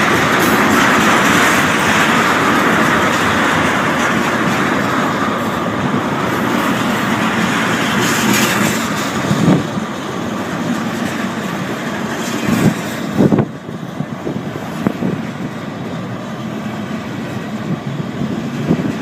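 Freight train tank cars rolling past at close range: a steady rumble and rush of wheels on rail, with a few sharp knocks about halfway through.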